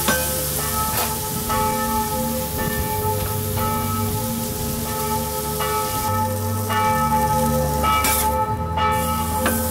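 Background music of bell-like chiming tones over a bass line that steps between notes, with the hiss of meat frying on a flat-top griddle underneath.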